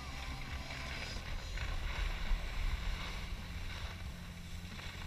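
Wind buffeting the microphone of a moving skier, a steady low rumble, over the hiss of skis sliding on groomed snow.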